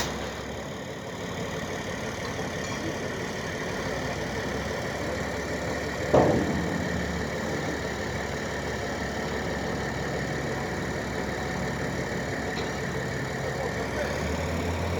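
An engine idling steadily. About six seconds in, a brief, loud sound slides down in pitch.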